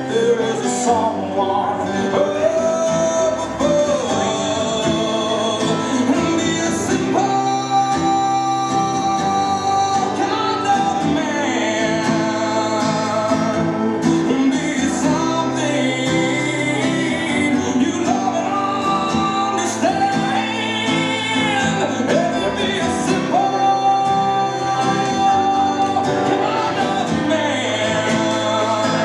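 A slow song with a singer and guitar accompaniment, played over a PA loudspeaker for a slow dance.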